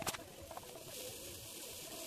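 Chinese yam and maitake mushroom pieces sizzling in a frying pan, the sizzle coming up about a second in.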